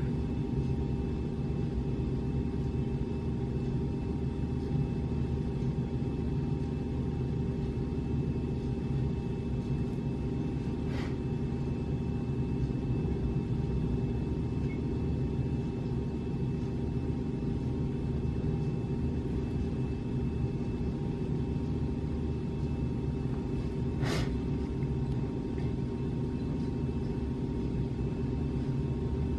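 Steady low hum of a running machine or room noise, with a few faint steady tones above it and two faint clicks partway through.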